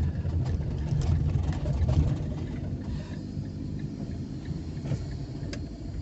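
Car driving slowly, its engine and road noise making a steady low rumble that eases a little about halfway through.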